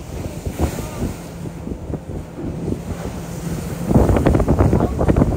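Wind buffeting the microphone over the wash of the sea around a boat, a steady low rumble. About four seconds in, voices come in over it.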